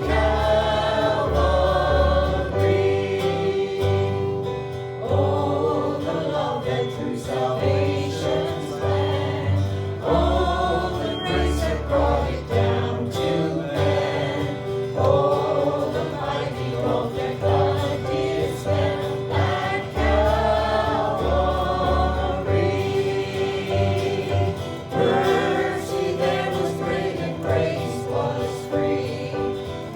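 Choir singing a gospel worship song with instrumental accompaniment: held chords under the voices and a bass line in short, repeated notes.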